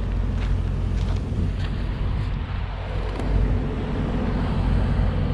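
A hand scrapes snow off a wooden fence rail in a few short swipes during the first two seconds, over a steady low rumble.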